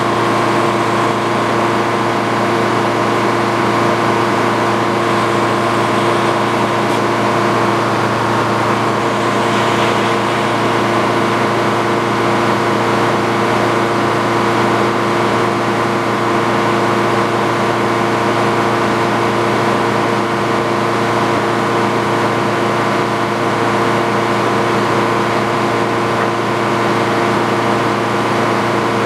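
The engine powering an antique Frick circular sawmill, running steadily at a constant speed.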